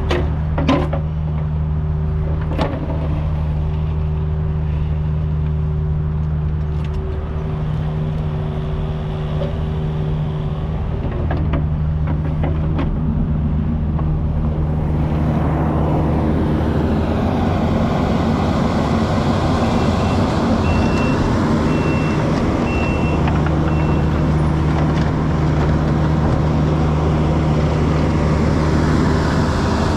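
Kubota U55 mini excavator's diesel engine running steadily at work, with a few sharp knocks in the first seconds and heavier, noisier working from about halfway. A backup alarm beeps about once a second for several seconds past the middle.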